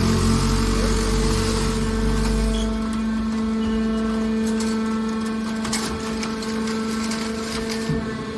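Hydraulic power unit of a scrap metal baler shear running with a steady hum. A heavier low rumble drops away about a third of the way in, and a few light knocks come through near the middle.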